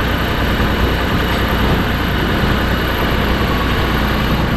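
A large engine idling steadily, a low even hum with no change in speed.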